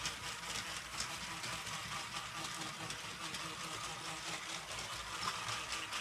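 Battery-powered toy locomotive running at double speed on a plastic track: a steady small electric-motor whir with a fine rattle of wheels over the track.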